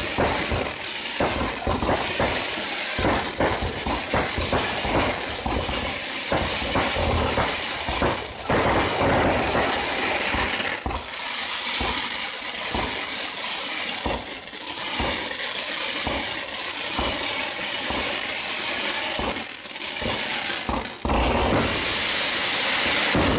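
Fireworks going off: a dense, continuous crackle of many small bangs over a hiss.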